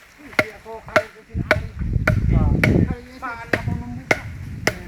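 Steady chopping, a blade striking wood about twice a second, with voices talking between the strokes.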